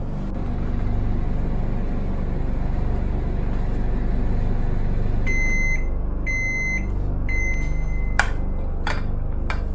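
Microwave oven running with a steady hum, then three long beeps one after another about two-thirds of the way in as the cooking time ends, followed by three sharp clicks near the end.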